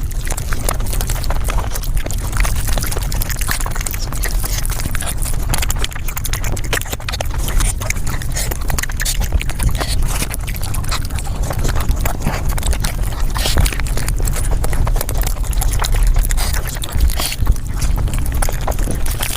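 Mukbang eating sounds sped up five times: chewing, crunching and mouth noises run together into a dense, rapid clatter of clicks over a low rumble.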